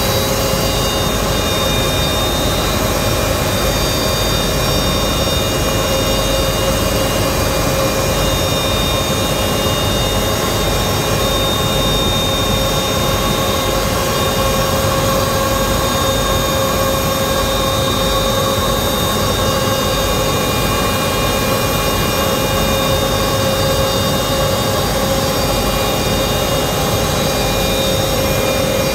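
Pieralisi olive-oil extraction machinery running steadily while oil is being produced: a loud, even mechanical hum with several constant high whining tones from the spinning centrifuge line.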